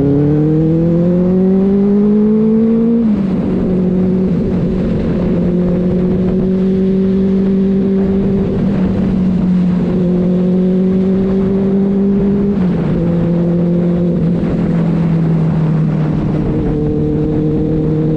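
Benelli 600i's four-cylinder engine pulling under acceleration. Its note climbs, drops sharply with an upshift about three seconds in, holds steady, drops again with another shift about two-thirds of the way through, then eases down slightly.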